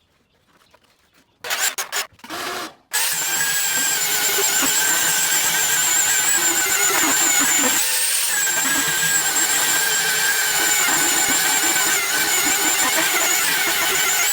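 A few short knocks, then about three seconds in an electric power tool starts and runs steadily with a high whine.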